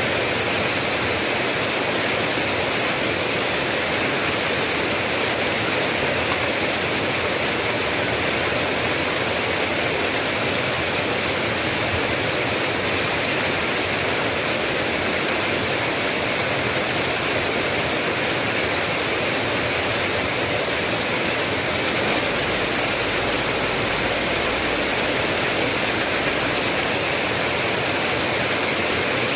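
Steady rain, an even hiss with no single drops standing out; a low rumble comes in about two-thirds of the way through.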